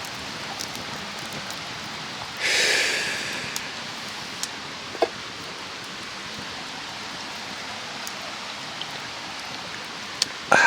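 Steady rush of a mountain stream, with scattered sharp clicks. A brief louder swish comes about two and a half seconds in, and a loud knock near the end.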